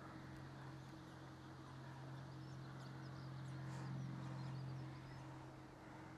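Faint outdoor ambience: small birds chirping faintly over a steady low hum that swells slightly about four seconds in.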